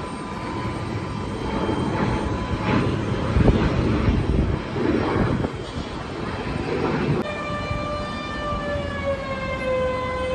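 Jet airliner engines during takeoff: a rough, wavering roar. About seven seconds in it cuts abruptly to a steady whine with several overtones that slides slightly down in pitch and then holds, its source unknown.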